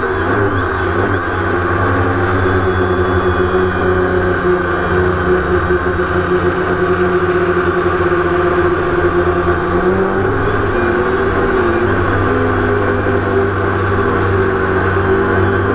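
DJI Phantom quadcopter's electric motors and propellers buzzing steadily, heard from the GoPro riding on the drone itself, the pitch wavering a little as the drone flies.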